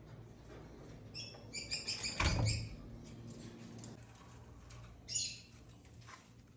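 Parrots chirping: a quick run of short, high chirps starting about a second in, with a low thump among them, then a few more chirps near the end.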